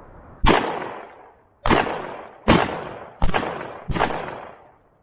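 Five gunshots fired in quick succession, a second or less apart, each with a sharp crack and a trailing echo.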